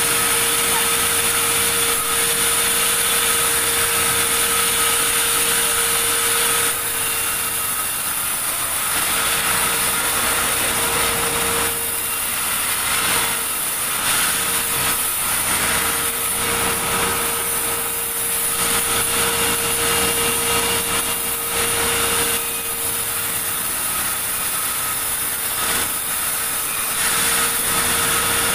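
Sawmill saw running continuously with a steady hum, cutting large timber. The noise drops and wavers from about seven seconds in, then comes back up near the end.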